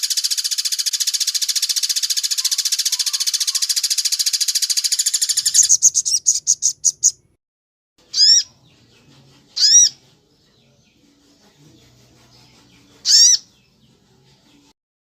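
A sogon songbird sings a fast, loud rattling trill for about five and a half seconds. The trill breaks into a short run of slowing notes, and then three separate sharp whistled notes that bend down in pitch follow, the last one near the end. The song mimics the woodpecker-like rattle of the pelatuk bawang.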